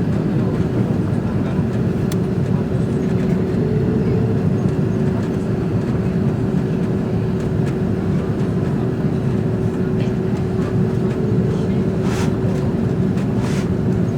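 Steady airliner cabin noise inside an Airbus A330-200: engine and airflow rumble with a thin steady hum. Two short hisses are heard near the end.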